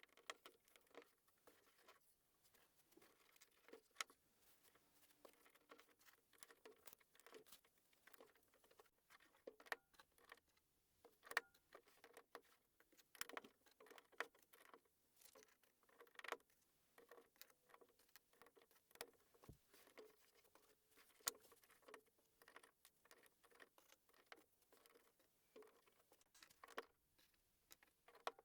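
LEGO plastic pieces being handled and snapped together: faint, irregular clicking and rattling of bricks, with a few sharper clicks standing out.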